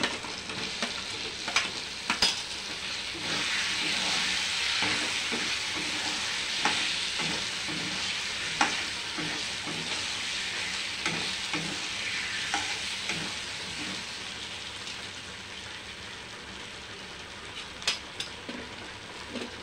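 Chopped kohlrabi sizzling in hot oil and tomato masala in a kadai while a steel ladle stirs it. The ladle clinks and scrapes against the pan now and then. The sizzle swells a few seconds in and slowly eases off toward the end.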